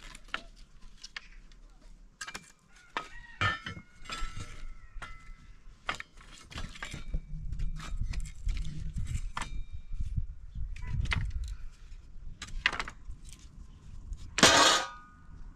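Dry sticks snapping and clattering as they are broken by hand and laid into a stone fire pit, with one louder snap near the end.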